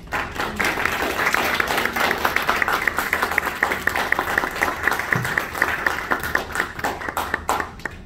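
Audience applauding: many hands clapping in a dense, irregular patter that closes a talk.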